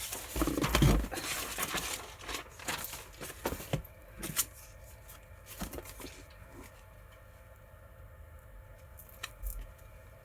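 Paper packaging being torn open and crinkled by hand, busy for the first four seconds, then a few light clicks and taps as things are handled.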